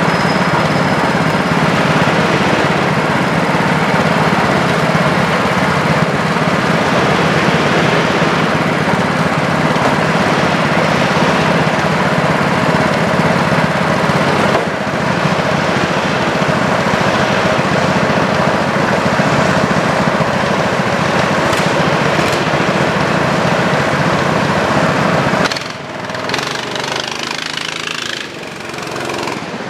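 Small single-cylinder petrol engines of rental go-karts running close by, a steady loud idle like a lawn mower. About 25 seconds in the sound drops and shifts as the karts pull away.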